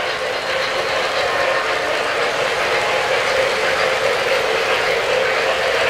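Three-rail O-gauge model trains running past on metal track: a steady mix of wheel clatter and electric-motor whir.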